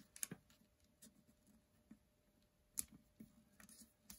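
Faint ticks and crinkles of folded origami paper being pressed and creased with a wooden skewer and fingertips: a few scattered sharp clicks, the sharpest nearly three seconds in, over near silence.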